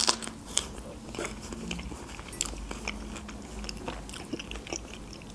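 Close-miked chewing of a fresh strawberry with whipped cream, with soft wet mouth clicks throughout. A sharp smack right at the start comes as the fingers are licked at the lips.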